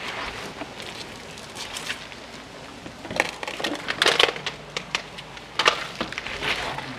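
Irregular scuffs and scrapes of feet and a plastic crate on stone steps, with a few louder scrapes in the second half.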